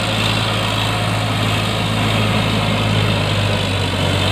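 Eicher 650 tractor's three-cylinder direct-injection diesel engine running steadily as the tractor drives through mud, a constant low hum with no change in speed.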